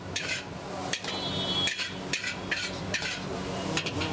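Steel ladle knocking and scraping against a metal kadai as gravy is ladled out: a string of irregular sharp clanks, about seven in four seconds, over a steady low hum.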